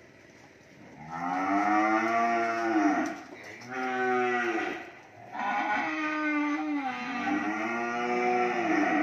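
Cattle mooing: three long calls one after another starting about a second in, the last one the longest.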